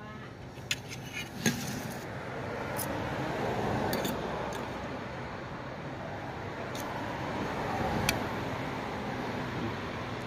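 Metal spoon and fork clinking against each other and the plate, a handful of sharp clinks, the loudest about a second and a half in. Under them a steady rushing background that swells twice.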